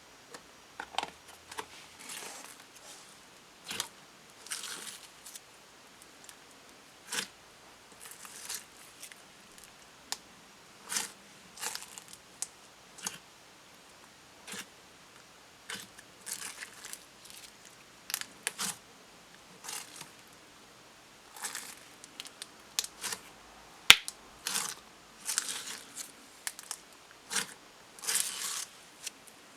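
Slime being squished, stretched and poked by hand: irregular sticky clicks, pops and crackles with short pauses between them.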